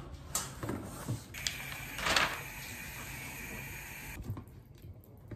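Clicks and handling noises from assembling a flat-pack serving cart. A loud brief rattle comes about two seconds in, and a steady whir runs for about three seconds in the middle.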